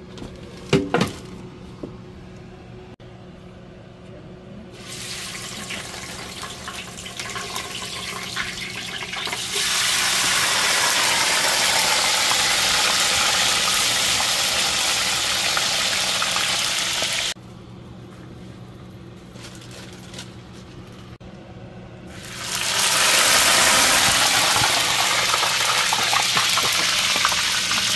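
Fries deep-frying in a skillet of hot oil, a loud steady sizzle. It breaks off suddenly partway through and comes back a few seconds later as another batch fries. A few sharp knocks about a second in.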